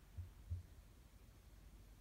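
Near silence with faint handling noise: two soft low thumps in the first half second as a vinyl figure is turned in the fingers.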